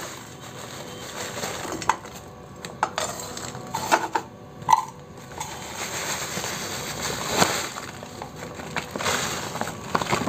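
Crumbly brown sugar poured from a plastic bag into a nonstick pan: the bag crinkles, granules patter onto the pan, and lumps clink against a steel tumbler several times, once with a short ring near the middle.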